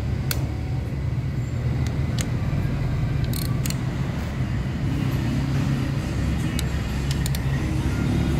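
Steady low engine rumble, like a motor vehicle running nearby, with scattered short, sharp clicks of hand tools on metal parts.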